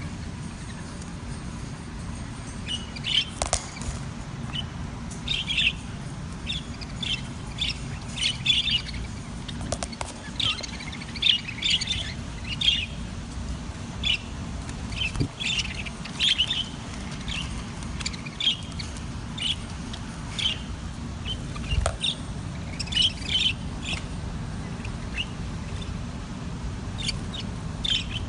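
Budgerigars chirping and chattering in short, scattered calls, over a steady low background noise.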